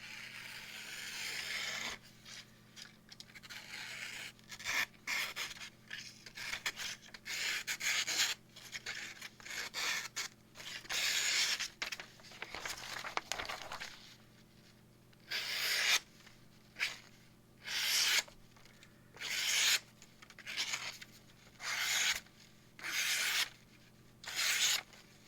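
A sharpened knife blade slicing through paper, over and over: a run of short scraping cuts, irregular at first, then regular at about one a second in the second half. It is an edge test on a freshly sharpened Cold Steel Kobun with S35VN steel.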